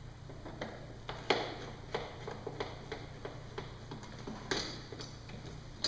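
Light, slightly irregular clicks, two to three a second, from a hand tool backing out the screws that hold the windshield on a motorcycle fairing.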